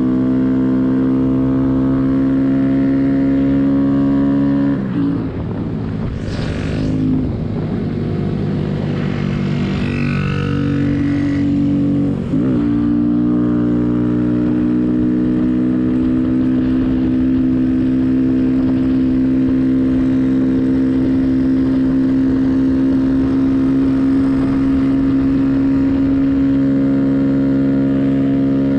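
Small 125 cc single-cylinder mini bike engine heard from the rider's seat, running at a steady cruising speed. From about five to twelve seconds in, the engine note wavers, drops a little in level and breaks up under noise, then settles back to a steady note.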